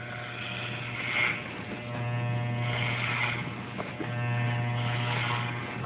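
Electric hair clippers buzzing steadily as they shave a man's head down short, the buzz swelling and easing a few times as the blades pass over the head.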